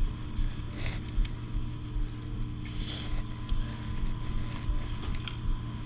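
Wind buffeting an action camera's microphone as a low, uneven rumble over a steady mechanical hum, with two short hisses about a second and three seconds in.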